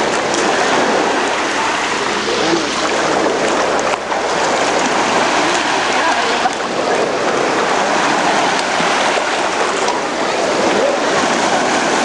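Loud, steady rush of shallow water pouring over rocks and splashing around people lying in the flow.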